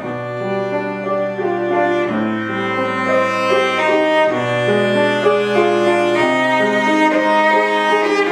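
Cello playing long, sustained bowed notes in a slow melodic line, with piano accompaniment, gradually growing louder.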